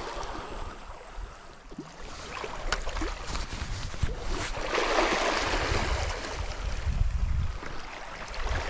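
Surf washing onto a sandy beach, swelling about halfway through, with low wind rumble on the microphone and a few faint clicks.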